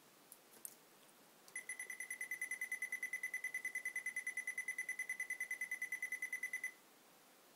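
Rapid, even string of short high-pitched beeps, about ten a second, from the GMC-4 microcomputer's key beeper as simulated keystrokes load a program into it. The beeps start about a second and a half in and stop abruptly after some five seconds.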